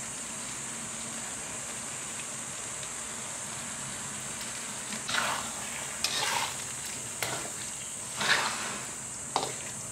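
Boiled-down chili paste sizzling steadily in a wok as cooking oil is poured in, starting to fry. From about halfway, a spatula scrapes through the paste against the wok in about five strokes.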